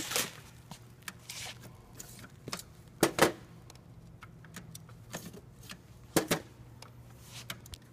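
Hard drives in hot-swap caddies being pulled from a rack server's drive bays and set down on a metal server lid: a few sharp plastic-and-metal clacks, the loudest about three seconds in and again about six seconds in, over a steady low hum.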